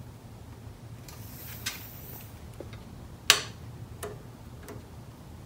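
Faint handling sounds of a plastic reader track being fitted against an aluminium fence rail: a soft rustle, then a few light clicks, the sharpest about three seconds in.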